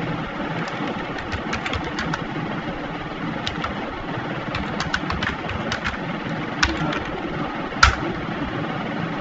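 Computer keyboard keystrokes typing a command in irregular runs of clicks, ending with one louder keypress near the end as the command is entered. A steady low hum underlies it.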